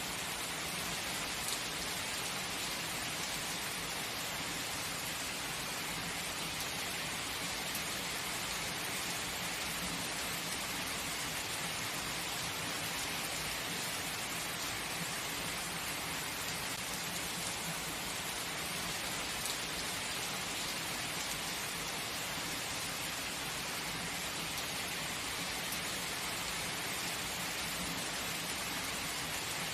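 Heavy rain falling steadily: an even, unbroken hiss of many drops on a surface.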